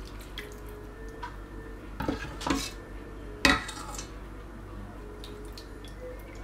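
Stainless steel ladle clinking and knocking against dishware while miso broth is ladled over noodles, a few clattering strikes with the loudest about three and a half seconds in.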